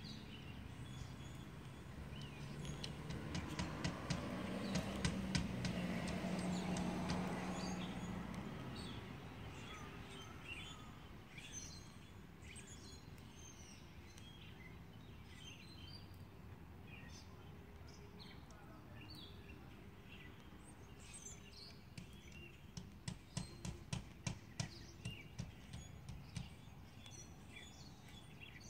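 Small birds chirping on and off over outdoor ambience. A low hum swells up and fades away over several seconds early on. Near the end comes a quick run of about ten sharp ticks or taps.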